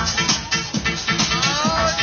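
Loud techno music with a steady, driving kick-drum beat; gliding tones that bend up and down come in over it during the second half.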